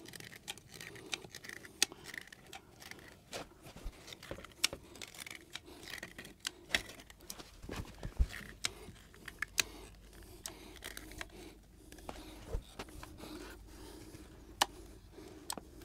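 Sealant gun trigger clicking in irregular strokes as it pumps a bead of Pink Grip grab adhesive from the tube.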